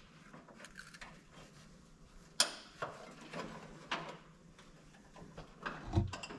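Scattered light clicks and knocks of pliers and metal parts being handled under a riding mower's frame, with a sharp click a little over two seconds in and a dull thump near the end.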